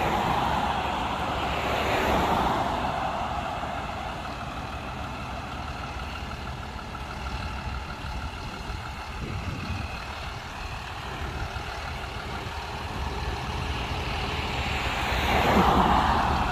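Road vehicles: a steady low engine rumble, with a vehicle passing near the start and another near the end, each rising and fading.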